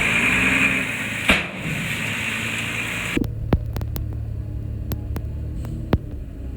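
Diesel engine of heavy earthmoving machinery running. About three seconds in, the sound changes abruptly to a lower, steady throb with several sharp clicks or clanks.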